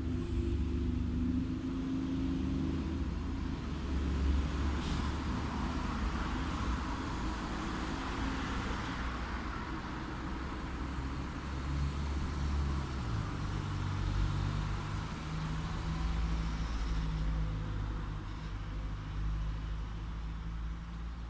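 Light road traffic: a steady low rumble of cars, with the tyre noise of a passing car swelling and fading about halfway through.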